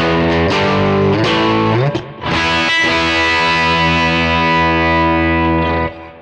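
Electric guitar played through a Kemper Profiler profile of a 1957 tweed Fender amp, overdriven and gritty. A few short chord stabs and a slide up come first, then a big chord struck about two seconds in and left ringing until it is muted near the end.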